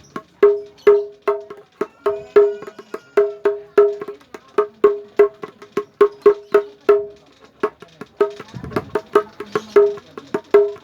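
Kendang hand drum played in a steady, quick rhythm of short ringing strokes, two or three strong ones a second with lighter taps between.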